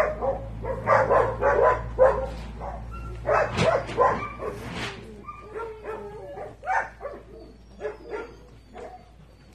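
Dogs barking repeatedly in short calls, some overlapping, growing fainter toward the end.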